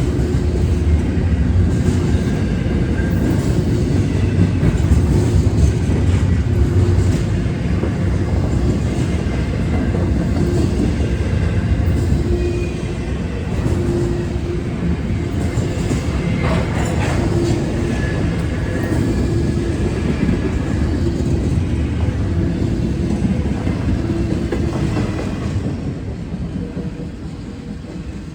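A train passing on the tracks: a steady, loud rumble of wheels on rail that fades away near the end.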